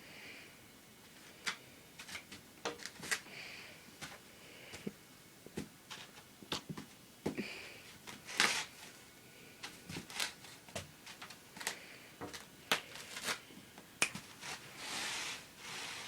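A cat playing with a foam pool noodle: irregular sharp taps and scuffs, with a longer swishing rub about eight seconds in and another near the end.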